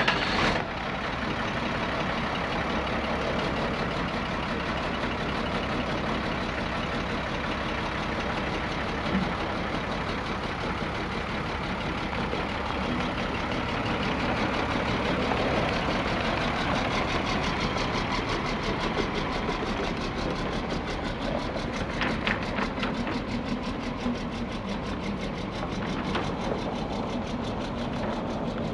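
1990 International 4700 box truck's engine running steadily, first at idle and then as the truck pulls away.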